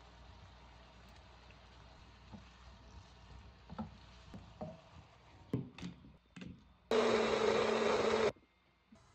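Faint sizzle of tomatoes and onions cooking in a pan, with a few knocks of a spatula against the pan as they are stirred. Then an electric blender runs loudly with a steady hum for about a second and a half, puréeing the cooked tomato mixture, and cuts off suddenly.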